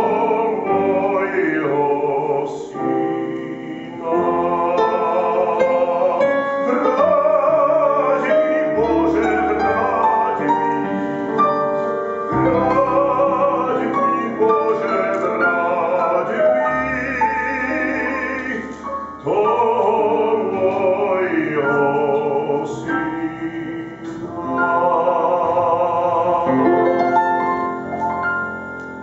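Male classical singer singing in operatic style with a broad vibrato, accompanied by piano.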